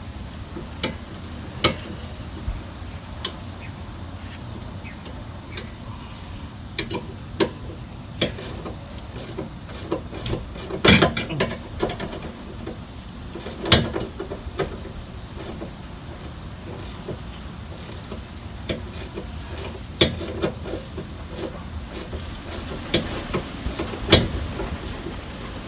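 Hand ratchet clicking in uneven bursts as suspension bolts are tightened by hand, with a few louder metallic clanks of tools against the parts.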